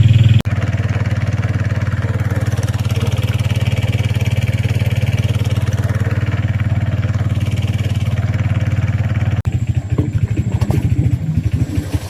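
A small engine running steadily while travelling, a low even hum. It breaks off sharply about half a second in and turns choppier and more uneven near the end.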